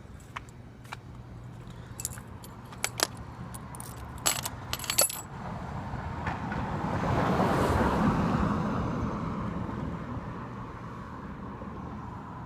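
Small metal clicks and jingles, like a bunch of keys being handled, over the first five seconds. Then a broad noise swells up, is loudest about eight seconds in and slowly dies away, over a faint steady hum.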